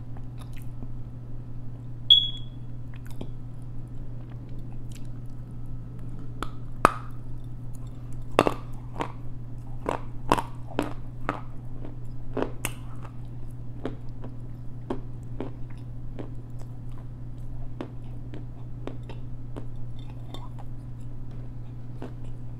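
Edible clay being bitten and chewed close to a clip-on microphone: crisp crunches, thickest in the middle at about two a second, then thinning into softer chewing. A steady low hum lies underneath, and a brief high ping comes about two seconds in.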